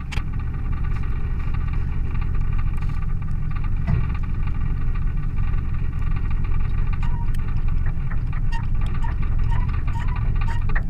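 A vehicle engine running steadily while driving, a constant low rumble with scattered clicks and rattles. In the second half there are short high squeaks, about two a second.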